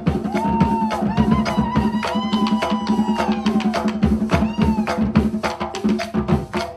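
Live cumbia band playing an instrumental passage: a hand-played drum, a tambora beaten with sticks and a metal guache shaker keep a busy, steady rhythm under a gliding wind-instrument melody that fades about five seconds in.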